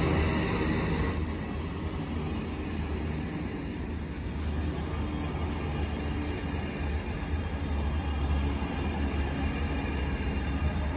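Container wagons of an intermodal freight train rolling past at speed: a steady low rumble of wheels on rail, with a steady high-pitched whine over it.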